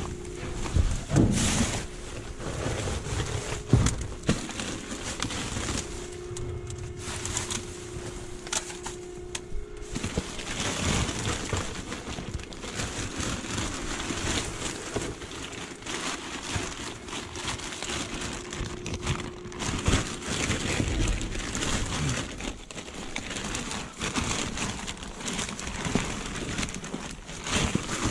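Plastic garbage bags rustling and crinkling as gloved hands dig through them, with scattered knocks.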